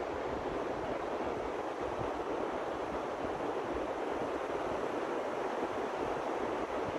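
Steady rushing noise of wind and surf, with uneven low rumbling from wind buffeting the microphone.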